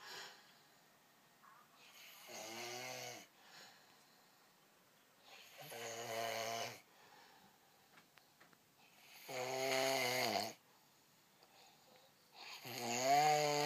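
A man snoring in his sleep: four snores, each about a second long and roughly three and a half seconds apart, each one louder than the last.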